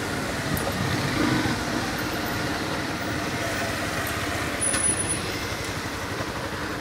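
Yamaha Factor 150 single-cylinder motorcycle engine running steadily while riding through traffic, with wind and road noise over it.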